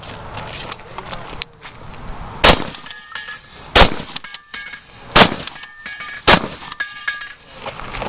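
Four shotgun shots fired in quick succession, roughly a second and a bit apart. Each shot is followed by a short metallic ring from a steel target being hit.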